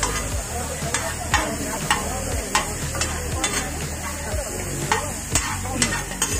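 Steel ladle scraping and clinking against a large flat iron griddle (tawa) while chopped onion, tomato and peppers are stirred and tossed, with about ten sharp clinks at irregular intervals. A light sizzle of the vegetables frying runs under it.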